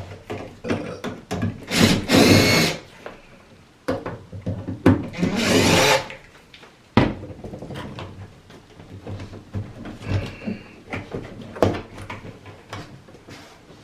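Power drill run in two short bursts of about a second each, backing screws out, with clicks and knocks of handling the tool and parts between them.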